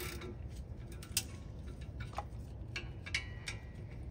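Irregular metallic clicks and ticks from a hand ratchet and socket working the brake caliper bracket bolts, which are on tight. The sharpest click comes about a second in.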